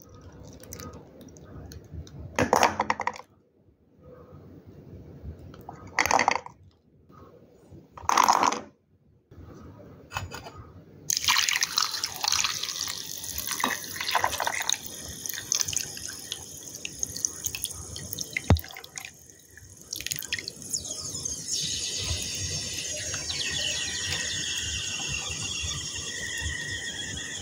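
Dry clay lumps knocking into a stainless steel bowl three times, a few seconds apart. Then water is poured over them, splashing and running into the bowl and settling into a steady pour near the end.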